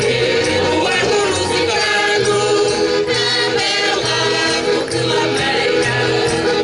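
Mixed choir of men, women and children singing a Portuguese folk song together, accompanied by acoustic guitars, over a bass line that alternates between two low notes.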